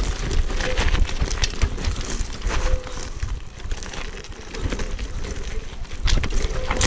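All-terrain wheelchair rolling downhill over a rocky gravel trail: knobbly tyres crunching over stones and the frame rattling with many small knocks, over a low rumble. The rattling eases briefly in the middle, then picks up again.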